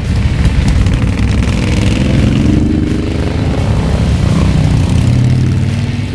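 A group of motorcycles riding past, several engines running at once, with an engine note rising and falling about two seconds in.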